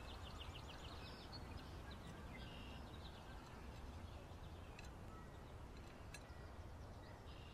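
Faint outdoor ambience: small birds chirping, with a quick run of chirps at the start and a few more a little later, over a low steady rumble. A couple of light clicks of cutlery on plates come in the second half.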